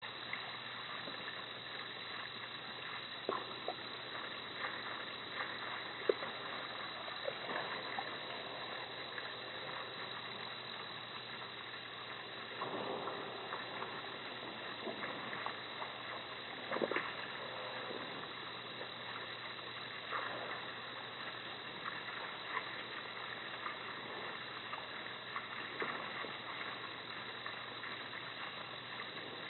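Steady hiss of a security camera's microphone at night, with scattered faint clicks and rustles, a few of them louder about six, thirteen and seventeen seconds in.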